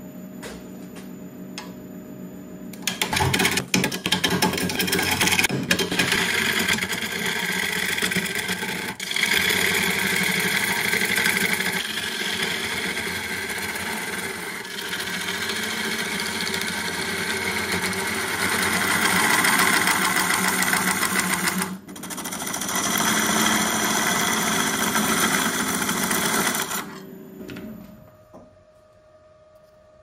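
Wood lathe motor humming as it spins a knotty, bark-covered wood blank, then from about three seconds in a turning tool cutting into the spinning wood: a loud, rough, continuous tearing of shavings, with a couple of brief breaks. Near the end the cutting stops and the lathe runs down.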